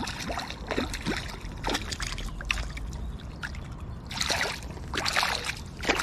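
A hooked perch splashing and thrashing at the water's surface as it is drawn in, a string of short splashes that come thickest about four to five and a half seconds in.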